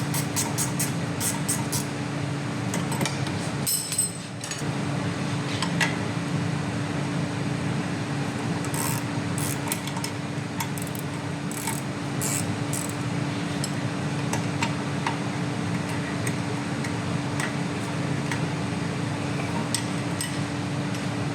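Hand tools clicking and clinking on metal while rear brake parts are refitted: a run of quick, regular clicks near the start, then scattered clinks, over a steady low hum.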